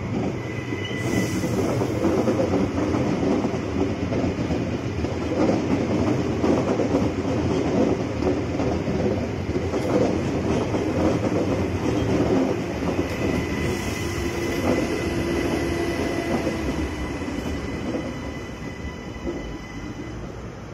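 Queensland Rail electric multiple-unit trains running through a station platform: a steady rumble of wheels on rail, with a thin high whine that comes and goes. The sound eases off in the last few seconds.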